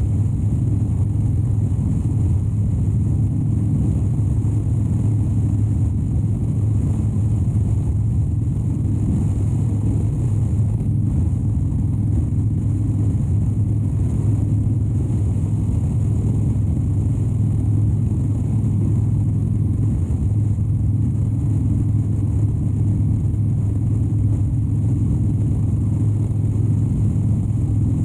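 2013 Harley-Davidson Dyna Wide Glide's 103 cubic inch V-twin running at a steady cruising speed, a deep, even drone with no shifting or revving.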